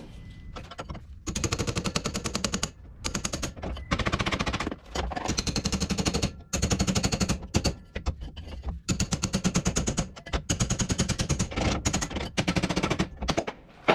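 A pneumatic hammering tool striking rapidly in about nine short bursts, working stuck closing-wheel bearings out of a planter.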